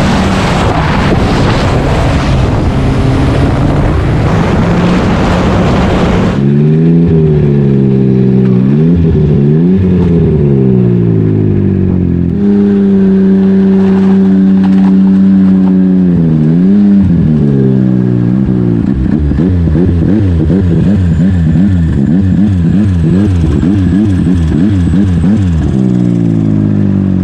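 Snowmobile running at speed, a rush of engine and wind noise. It then gives way to a turbo Yamaha Sidewinder snowmobile engine revving up and down, holding a steady idle for a few seconds, then blipped in quick repeated revs near the end.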